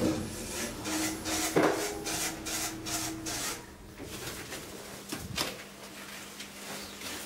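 KONE elevator car's doors sliding open with a steady hum from the door drive, mixed with rough rubbing and handling noise for the first three seconds or so. After that the sound drops, with a few sharp clicks about five seconds in.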